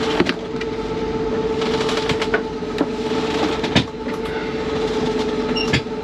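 Steady drone with a constant hum from the sailboat's engine, heard inside the cabin while the dismasted boat motors on. Several sharp clicks and taps from small tools and wires being handled.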